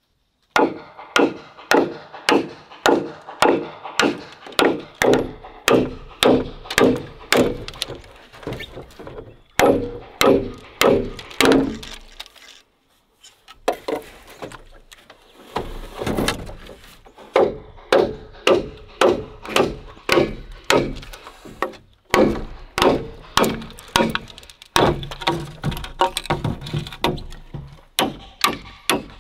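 A large bush knife chopping into green bamboo, runs of quick strokes at two to three a second, each a hollow, ringing knock, with short pauses between the runs.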